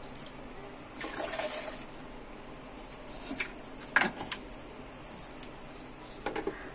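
Light clicks and clatter of hard kitchenware being handled, with a short hiss about a second in. The sharpest click comes about four seconds in, and a few more come near the end.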